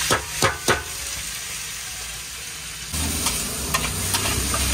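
Chopped onion and tomato sizzling on a large flat griddle (tawa), with a metal spatula striking the griddle three times in the first second and scraping it again a few times from about three seconds in.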